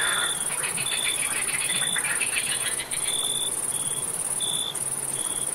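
Night chorus of crickets and frogs: a steady, very high-pitched cricket trill with short chirps repeating about once a second. Over the first couple of seconds, frogs call in rapid, pulsed croaks.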